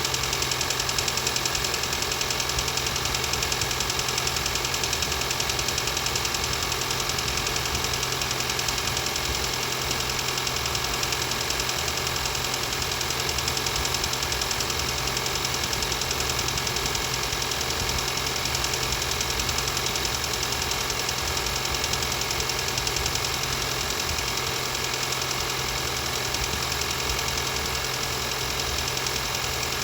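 Car engine running steadily at idle with a persistent knock, the knocking the owner is recording.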